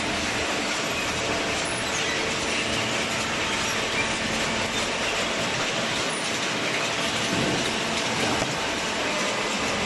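Hydraulic scrap baler running: a steady, even mechanical noise.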